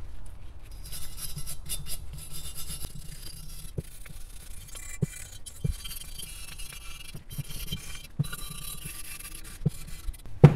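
A brush scrubbing the body of a Rochester Quadrajet carburetor: repeated short, scratchy strokes with a few light clicks.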